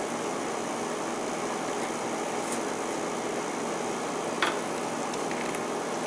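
Steady hum of running machinery, with a couple of faint clicks as alligator-clip test leads are handled.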